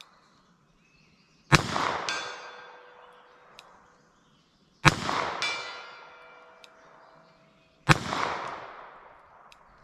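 Three revolver shots with .38 Short Colt cartridges, about three seconds apart. Each shot is followed by a ringing tone that slowly dies away, the sound of a distant steel target being hit.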